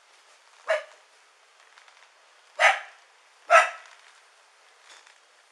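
A dog barking three times: one bark about a second in, then two more about a second apart in the middle.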